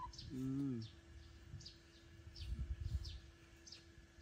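A bird calling steadily in the background, a quick falling high chirp about twice a second. A man gives a short low hum of a sound near the start, and there are a few soft low thumps.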